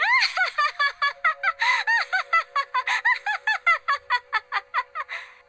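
A woman's high-pitched cartoon laugh: a long, fast run of short 'ohohoho' syllables, each rising and falling in pitch, with a faint steady tone underneath from about a second in.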